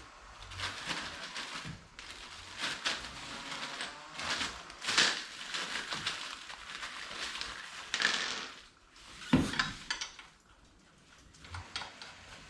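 Irregular metallic clatter and scraping of hand tools and wheel hardware during wheel mounting, with a sharper knock about nine seconds in.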